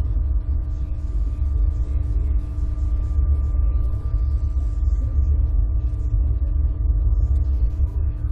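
Steady low rumble with a faint, even hum over it, picked up by a microphone riding on a slingshot ride capsule.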